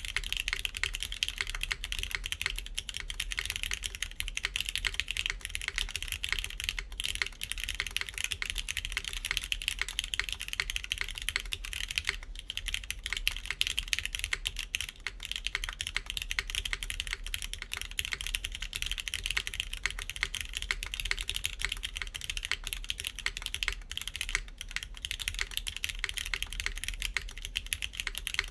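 Continuous fast typing on a KBDfans Tofu60 3.0 mechanical keyboard in its PCB gasket mount configuration. It has factory-lubed TypePlus NK Classic Blue switches, a PEI plate and GMK keycaps, and gives a steady stream of sharp key clacks.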